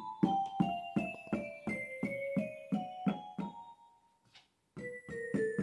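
MalletKAT electronic mallet controller struck with a yarn mallet, each pad triggering a single keyboard-like note: a run of notes about three or four a second that steps down and then back up, a pause of about a second, then another run stepping down from lower. Every pad sounds, so the re-glued pads are working.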